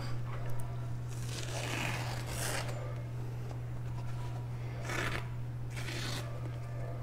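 A kiritsuke gyuto knife slicing through paper: three soft rasping swishes, the longest about a second and a half in, over a steady low hum.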